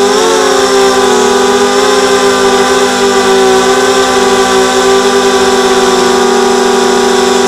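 XHover 230 mini quadcopter's brushless motors and propellers whining steadily in flight, picked up by its onboard camera; the pitch wavers briefly about half a second in as the throttle changes.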